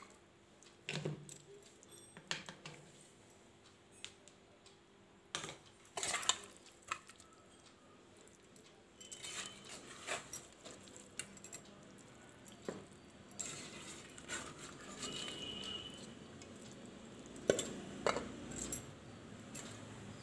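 A steel container clinking and knocking against a bowl as raw chicken pieces are tipped into the marinade: scattered, irregular clinks and knocks with quiet gaps between them.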